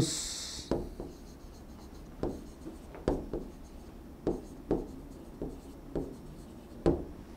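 Stylus writing a word by hand on an interactive display screen: about a dozen light, irregular taps and scrapes of the pen tip against the screen, the sharpest one near the end.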